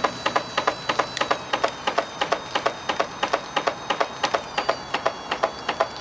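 Burning washing machine drum turning at its slowest speed, giving a fast, fairly regular clatter of knocks, several a second.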